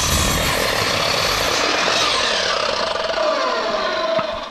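Sliding compound miter saw running and cutting through a rough-sawn 2x6. Its whine falls in pitch over the last couple of seconds, and the noise drops away near the end.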